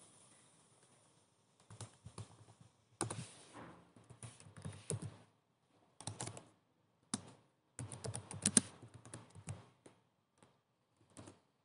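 Keystrokes on a computer keyboard, typed faintly in short bursts with pauses between them.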